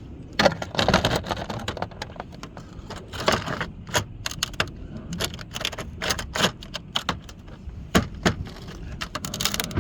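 Decra metal roof panels clanking and clicking irregularly as they are worked on, a quick run of sharp metallic knocks with a few louder ones.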